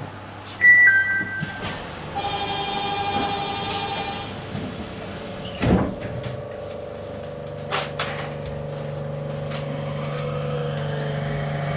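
Nippori-Toneri Liner automated guideway train departing a station: a short electronic chime, then the departure signal tone for about two seconds, and a thud of the doors shutting just before halfway. After that the train's electric drive starts with a steady hum as it pulls away.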